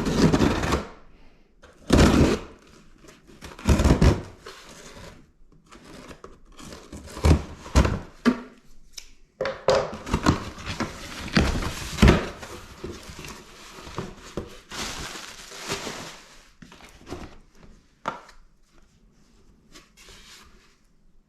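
A cardboard shipping box being opened and unpacked: tape tearing, packaging rustling and crinkling, and several thuds of the box and its contents being handled, the loudest ones about 2, 4 and 12 seconds in. The rustling thins out in the last few seconds.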